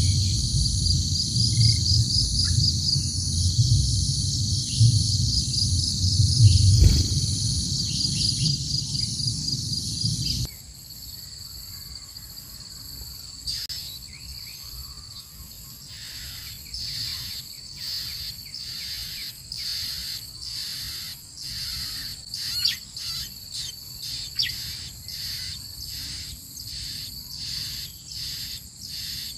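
Steady high-pitched insect trilling, under a low rumble for the first ten seconds or so that stops abruptly. After that it is quieter, with short high chirps repeating about once a second.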